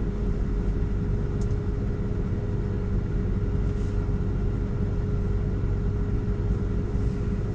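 Steady low rumble and hum inside the cabin of a stationary Tesla, with a steady mid-pitched tone running through it.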